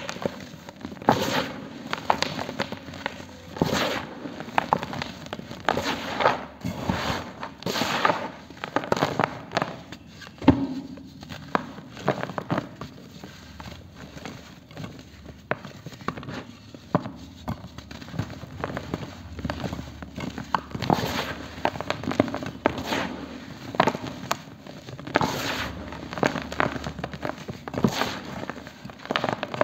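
Hands crushing and crumbling a dry cement disc: irregular gritty crunches and crackles, several a second at times, with the hiss of powder sifting through the fingers between them.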